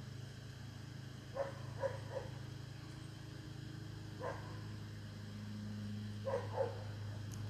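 A dog barking: six short barks in three groups, three, then one, then two, over a steady low hum.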